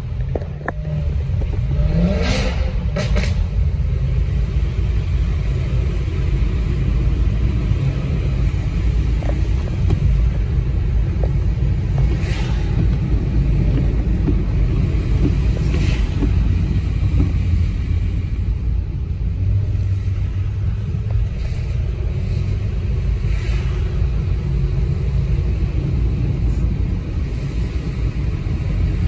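Car engines and tyres on a wet road, heard from inside a following car's cabin: a steady low engine sound, with a Chevrolet Corvette C7's V8 ahead. An engine revs up briefly about two seconds in.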